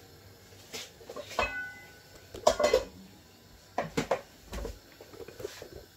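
Kitchen clatter of pots and dishes being handled: a string of separate knocks and scrapes, one about a second and a half in leaving a short metallic ring, the loudest two about halfway through.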